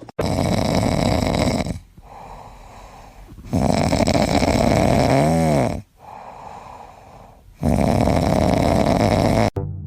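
Snoring: three long, loud snores with quieter breaths between them. The second snore ends in a brief whistling warble that bends up and down.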